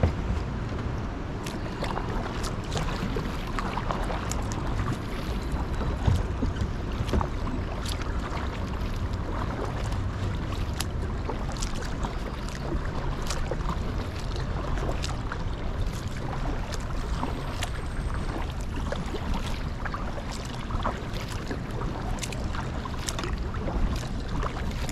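Kayak paddling on a river: paddle strokes moving water, with irregular sharp drips and splashes over a steady low rumble.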